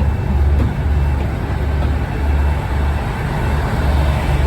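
Diesel engine of a Moskva-class river passenger boat running under way, a steady low drone that swells and eases slightly every second or so.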